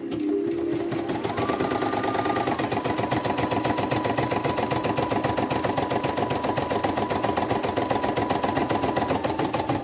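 CNY computerized embroidery machine stitching a test design with gold thread after servicing: a rapid, even needle rhythm over a steady motor whine that picks up speed about a second in.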